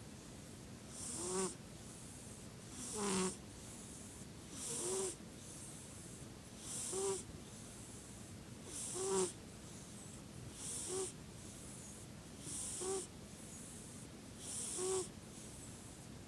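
Steady, regular snoring: eight snores about two seconds apart, each a short pitched snore that swells and then stops abruptly.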